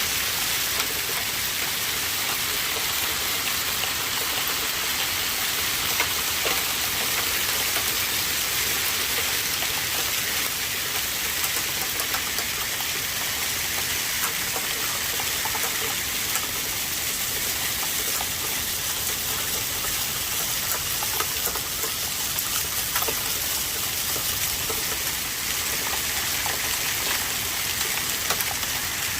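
Heavy rain pelting down: a steady hiss with many scattered sharp ticks of drops striking.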